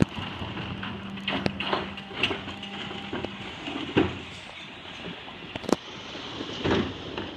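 Rear-loading refuse lorry running with a steady hum that stops about halfway, while plastic wheelie bins are tipped by its lifter and wheeled, giving several sharp knocks and bangs.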